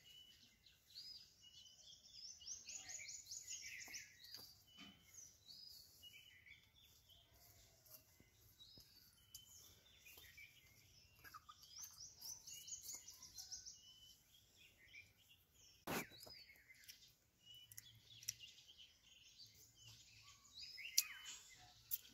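Faint outdoor birdsong: several birds chirping, with a quick run of repeated high notes about three seconds in and again about twelve seconds in. A few sharp clicks sound in the second half.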